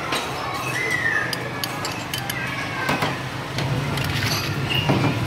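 Street food stall ambience: a steady low hum with scattered light clinks of a wire strainer and bowl against the metal cooking pots, and a few faint high gliding calls.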